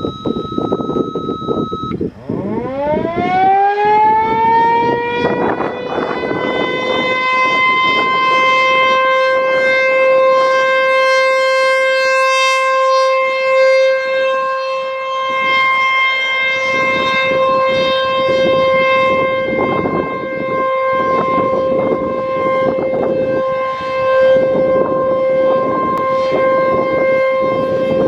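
American Signal T-135 AC/DC outdoor warning siren sounding its short alert test. It winds up about two seconds in, its pitch gliding upward into a single steady tone that then holds, swelling and easing slightly in loudness; the tone is very loud.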